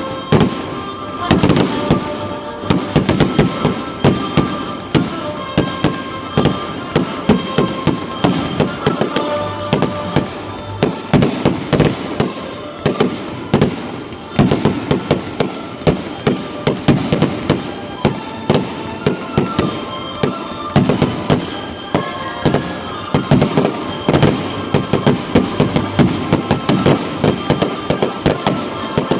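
Fireworks display: a dense, continuous barrage of bangs and crackles, several reports a second.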